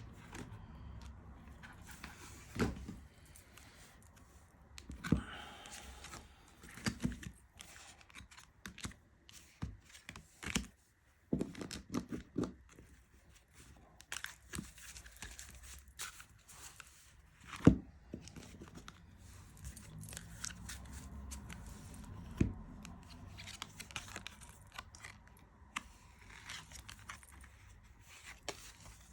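Hands handling tarot decks and their packaging: plastic wrap crinkling and tearing, with scattered taps and knocks of card boxes on a table, the sharpest knock about two-thirds of the way through.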